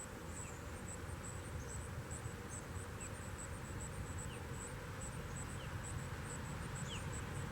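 Outdoor ambience led by an insect's short, high chirps repeating a few times a second, over a soft steady hiss and a low rumble.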